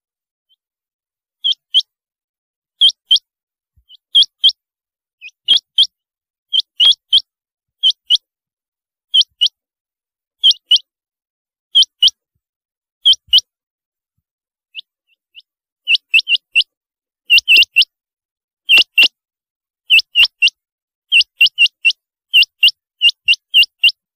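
Rain quail (black-breasted quail) calling: short, high, paired notes repeated about once a second. They pause briefly just past the middle, then come faster near the end.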